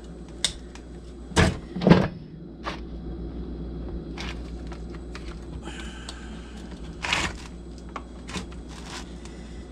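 Scattered clicks and clunks of tools and plastic and metal chainsaw parts being worked against each other while a stuck part is pried loose during a chainsaw teardown, with two louder knocks a couple of seconds in and a short squeak near the middle.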